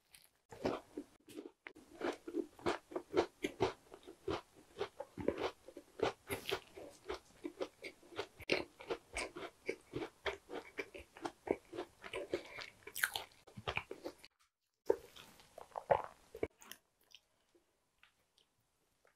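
Close-miked chewing of a tart slice, with crisp pastry crust crunching in quick, even strokes. It breaks off about three-quarters of the way through, picks up with a few more chews, then stops.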